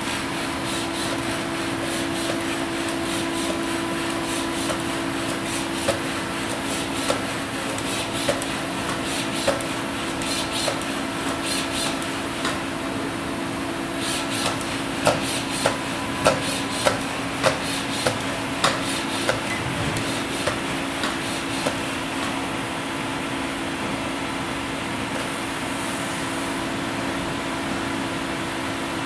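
Humanoid robot's electric joint drives humming steadily while it steps and reaches, with a run of sharp clicks and knocks from its feet and joints through the middle, at most about two a second.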